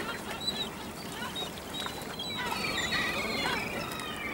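Gulls calling, a chatter of several short harsh calls that is busiest about two and a half to three and a half seconds in.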